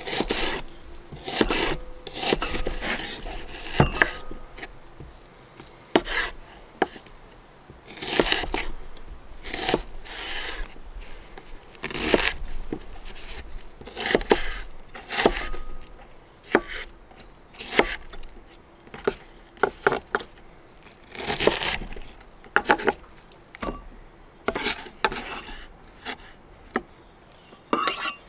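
Chef's knife slicing a red onion on a bamboo cutting board, with uneven cutting strokes about a second apart as the blade meets the wood.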